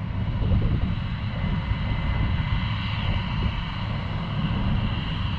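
Steady low engine rumble with a faint, even high hum over it.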